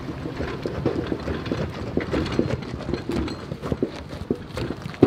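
Old boat trailer clattering and banging over the pavement as a pickup tows it past, with one wheel running on its bare rim; a truck engine hums underneath.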